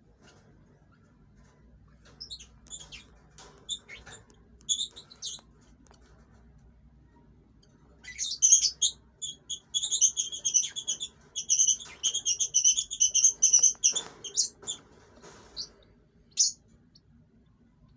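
Lovebirds chirping at the nest. A few short, high chirps come first, then a dense run of rapid, repeated high chirps for about six seconds, tapering off, with a single chirp near the end.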